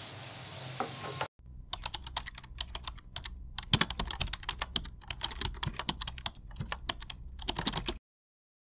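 Rapid, irregular keyboard typing clicks, a typing sound effect that starts abruptly about a second in and cuts off suddenly near the end.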